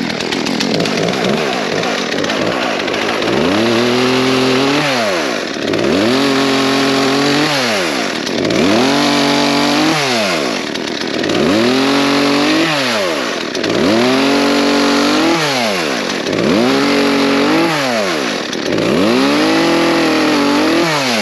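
Craftsman 36cc two-stroke chainsaw running at high revs, its pitch dropping sharply and climbing back about every two seconds, about eight times.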